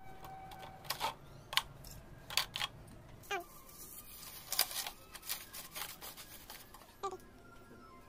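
Dry grass stalks crackling and a thin plastic bottle crinkling as they are handled: irregular sharp clicks and crackles, about a dozen, with quiet gaps between.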